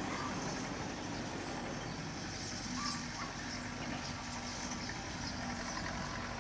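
Belarus 825 tractor's diesel engine running steadily at a distance as it pulls a loaded cassava trailer away, with a few short chirps over it.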